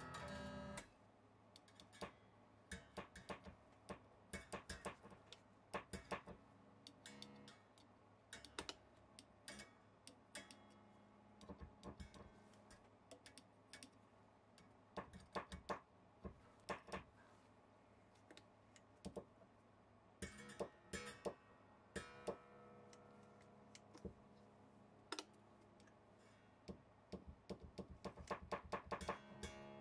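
Semi-hollow electric guitar being checked after rewiring: strings lightly plucked and muted by hand, with many small clicks and taps and a few short ringing notes.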